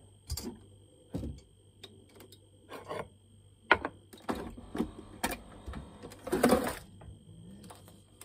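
Irregular clicks, knocks and clatter of hands working at a capsule coffee machine: a mug handled, the machine's top worked, and coffee capsules rattled in the storage drawer beneath it. There is a sharp click near the middle and a longer rattle about six and a half seconds in.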